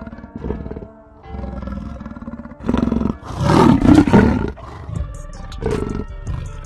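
A big cat's roar sound effect over music, loudest from about three to four and a half seconds in.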